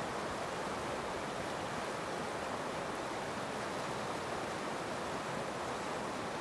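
The DuPage River in flood, rushing fast and turbulent around a tree trunk: a steady, even rush of water.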